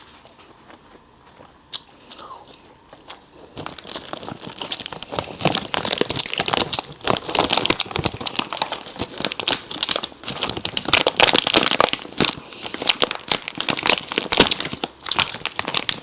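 Plastic food wrapping crinkling and tearing as a package is handled and opened, starting about three and a half seconds in after a few isolated clicks, and going on as dense crackling.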